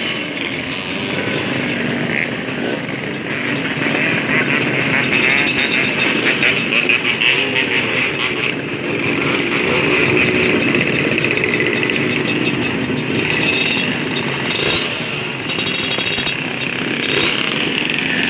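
Many small motorcycle engines running together as a stream of bikes rides slowly past, a dense rapid chatter with pitches rising and falling as riders rev.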